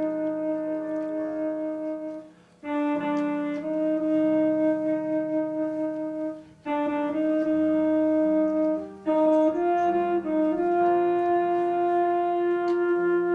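Slow instrumental music: a melody of long held notes over quiet low sustained chords, with brief breaks between phrases about two and a half and six and a half seconds in.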